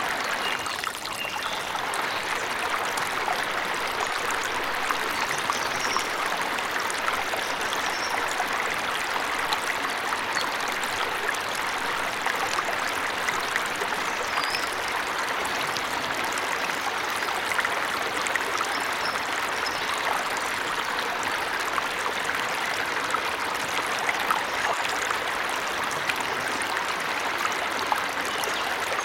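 Waterfall running with a steady, even rush of water. A few faint, short, high bird chirps sound now and then over it.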